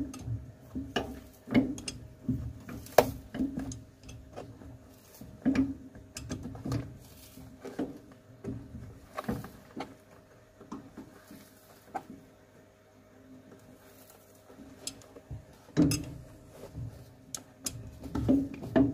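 Cobbler's pincers gripping and levering the old red Dainite rubber top lift off a shoe heel: irregular clicks, knocks and creaks as the lift and its nails are worked loose.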